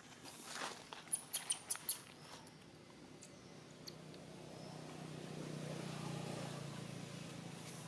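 A quick run of five short, high-pitched squeaks about a second in, typical of a baby macaque. Then a low engine hum swells and eases off, like a motor vehicle passing.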